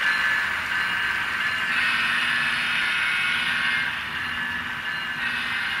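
N-scale model GE diesel locomotives with ESU LokSound decoders playing diesel engine running sound through their small speakers, mixed with the rolling of the model train on the track; the sound swells and fades as the train passes.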